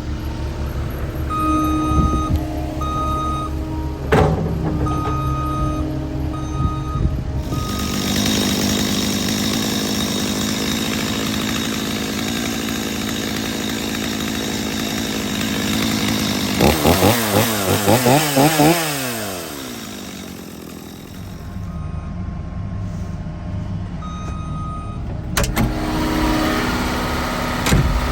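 Heavy excavation equipment running, its reversing alarm beeping in short repeated tones for the first several seconds and again near the end. In between comes a long, louder stretch of high-revving machine noise whose pitch sweeps rapidly up and down, then winds down.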